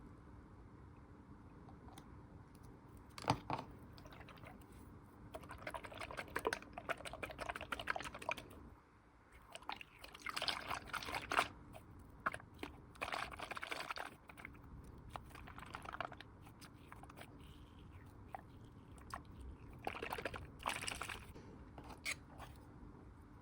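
Squishy toy being squeezed and worked in the hands, giving crunchy, crackly squishing noises in about five separate bouts with pauses between.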